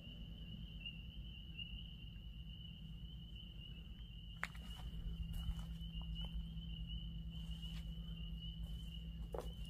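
Night insects, crickets or katydids, trilling on one steady high note, faint and unbroken, with a few faint clicks here and there.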